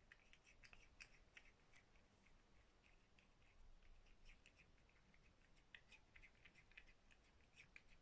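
A cat chewing flaked fish: faint, irregular wet clicks, several a second, coming in clusters.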